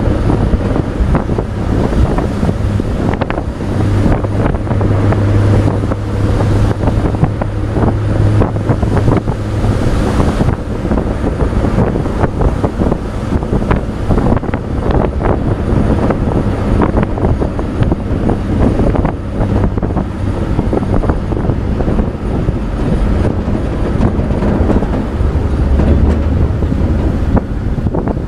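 Riding in the open wood bed of a 1966 Chevrolet pickup truck: steady engine hum and road noise, with wind buffeting the microphone and a constant clattering rattle of the bed and loose bolts.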